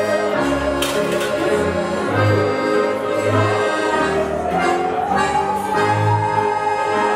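Swiss folk band music: a bowed musical saw carries the melody in a smooth, wavering tone that glides slowly down and back up. Accordion chords and bouncing bass notes play under it.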